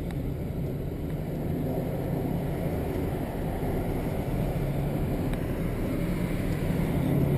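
Engine and road noise heard inside the cab of an older Chevrolet/GMC full-size truck moving slowly in traffic: a steady low rumble with an engine hum that grows a little louder near the end.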